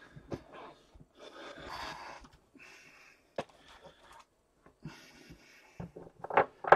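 Tabletop handling noises: a series of short rustles with a few light clicks and knocks in between, and a brief voice-like sound near the end.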